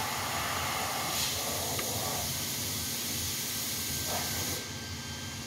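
Steady hiss of workshop background noise over a low hum, with no distinct tool strikes.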